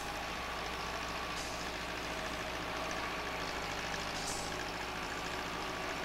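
Diesel engines of an asphalt paver and haul truck running steadily, a low even drone, as the paver pushes the truck while it unloads mix into the hopper.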